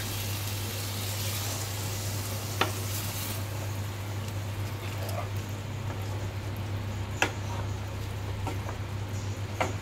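Wooden spatula stirring boiled kidney beans into a thick, sizzling masala in a non-stick pan over a gas flame. The spatula knocks sharply against the pan three times, the stirring and sizzling going on steadily between the knocks.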